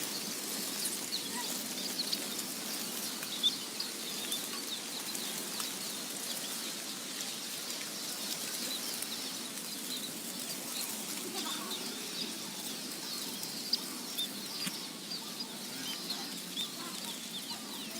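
Many sparrows chirping, a scatter of short high chirps over a steady hiss, with a few brief sharp taps.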